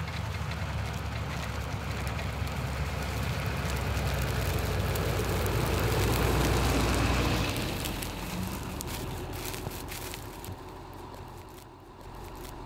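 Pickup truck driving slowly over a stubble field, its engine rumble growing louder as it approaches and passes close by about seven seconds in, then dropping away. Faint clicks follow near the end.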